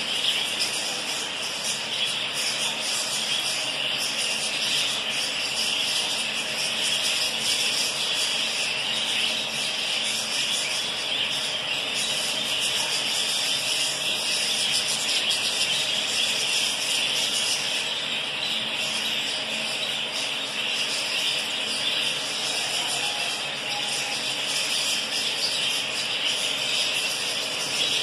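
A large flock of budgerigars chattering and twittering all at once, an unbroken high-pitched din of many overlapping calls.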